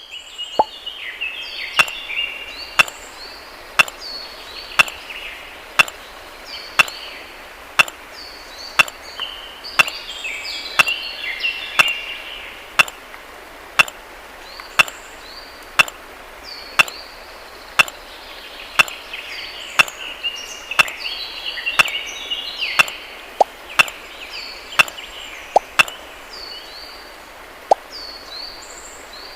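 Sharp knocks about once a second, evenly spaced, over a busy run of short, high, falling chirps.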